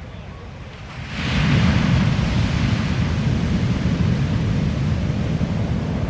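Ocean surf: a wave breaks with a sudden loud crash about a second in. Its whitewater then keeps rushing in a long hiss that slowly eases.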